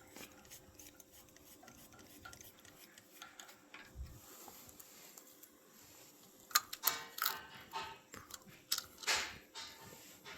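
Metal tools and small engine parts clinking and tapping as they are handled during outboard powerhead reassembly, with a soft thump about four seconds in and a run of sharper clinks past the middle.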